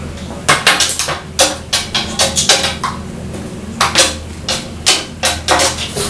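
A rapid series of sharp clattering knocks, hard objects striking, in two runs: one starting about half a second in and one from about four seconds in, over a steady low hum.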